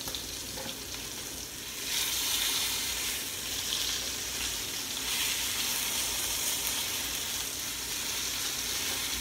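Beef roast searing in grease in a cast-iron skillet, a steady sizzle that turns louder about two seconds in as the meat is worked in the pan.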